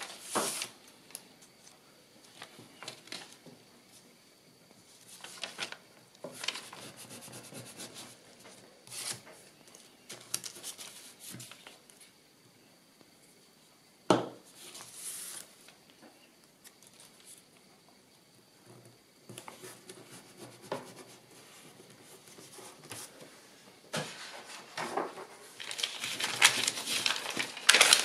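Kraft paper being handled on a cutting mat: scattered rustles, slides and light taps, with a sharp knock about halfway through. In the last few seconds the rustling and sliding of paper grows louder and more continuous.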